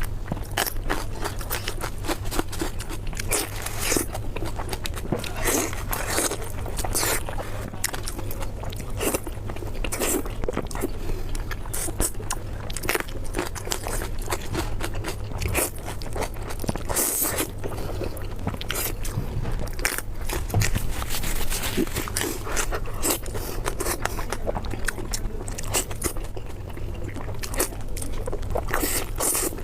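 Close-miked eating of pork belly: irregular crunchy bites and wet chewing, with a steady low hum underneath.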